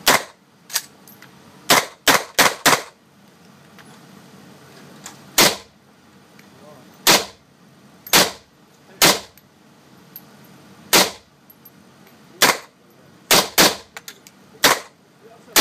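AK-47 rifle fired one shot at a time in a reverberant indoor range, about fifteen sharp shots at an uneven pace. There is a quick run of four shots about two seconds in, then mostly single shots a second or more apart.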